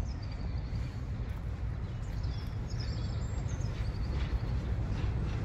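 Low rumble of a diesel-hauled train approaching in the distance, growing slightly louder towards the end, with a bird chirping a few times above it.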